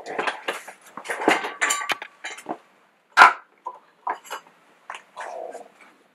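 Plastic coffee filter cone being handled and set on a countertop: a run of clicks and knocks, with one sharp knock about three seconds in.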